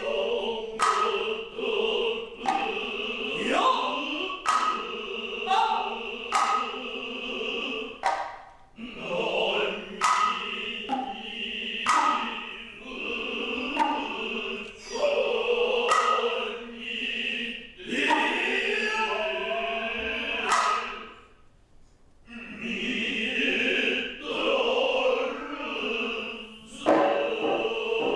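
Noh chanting (utai) with hayashi accompaniment: sustained chanted voices punctuated by sharp hand-drum strikes at irregular intervals. The sound briefly drops away about three quarters of the way through, then resumes.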